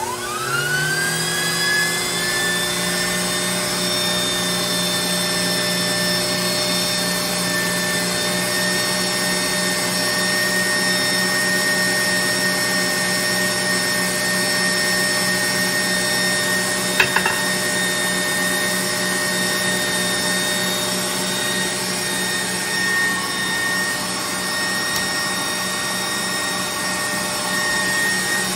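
KitchenAid stand mixer motor starting up, its whine rising over about a second, then running steadily as it drives the Gourmet Pasta Press auger, extruding dough as large macaroni. A brief click about 17 seconds in.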